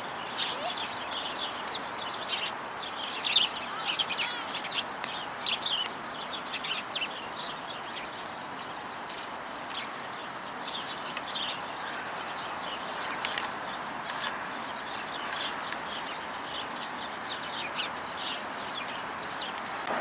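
A flock of small birds, Eurasian tree sparrows among them, chirping: many short overlapping chirps, busiest in the first few seconds and thinning out later, over a steady background hiss.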